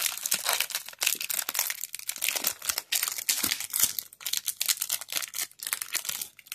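Wax-paper wrapper of a baseball card pack crinkling and tearing as it is ripped open: a dense, irregular crackle of paper.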